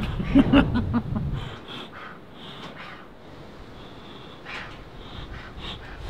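Bee smoker's leather bellows being squeezed, pushing smoke out of the spout in a series of airy puffs. The puffs are strongest in the first second and a half, then come fainter and further apart.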